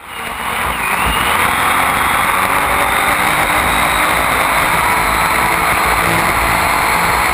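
Onboard sound of a racing powerboat running flat out: a loud, steady rush of engine, wind and water noise that fades in over the first second and then holds level.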